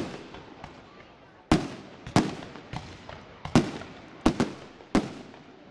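Aerial fireworks going off: about eight sharp bangs at irregular intervals, two of them close together a little past four seconds in, each trailing off in echo.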